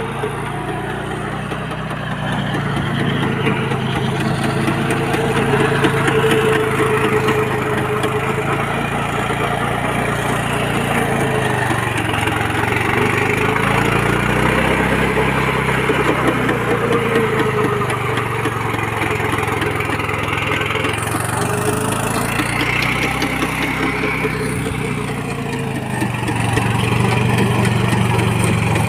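Swaraj Code compact tractor's single-cylinder diesel engine running steadily under load while it drives a rotavator through the soil, its pitch wavering up and down and a little louder near the end.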